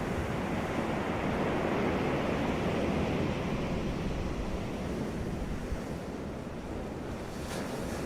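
Sea waves breaking and washing on a beach, a steady wash of surf that swells a little and eases off.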